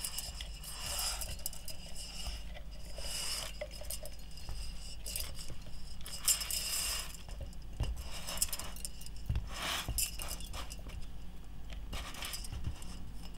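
Kovea TKL-N894 gas lantern being screwed by hand onto a flat 230 g gas canister: several separate metallic scrapes and clinks a second or few apart, from the threaded burner turning on the canister valve and the lantern's metal guard and dangling hanging chain knocking together.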